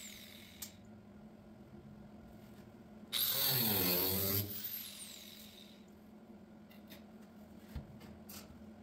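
A handheld power tool runs in one short burst of about a second and a half, its pitch dipping and climbing, then winds down with a falling high whine. A few light clicks and taps follow.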